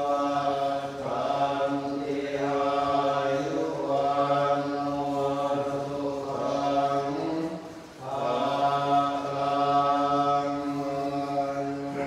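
Thai Theravada Buddhist chanting in Pali, voices held on a near-steady, drone-like pitch, with a short pause for breath about eight seconds in.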